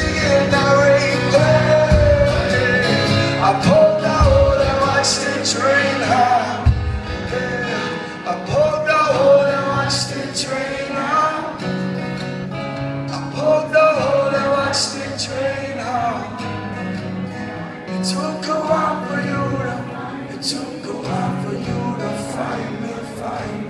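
Live acoustic guitar with a man singing a wordless melody over it, growing gradually quieter toward the end.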